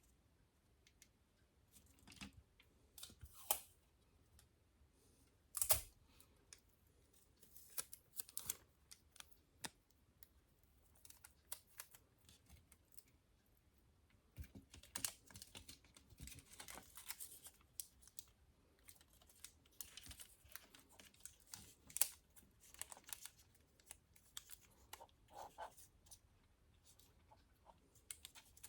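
Irregular small clicks, taps and short scrapes of hands handling small parts and tools, with a sharper knock about six seconds in and a busier stretch of scraping and clicking in the second half.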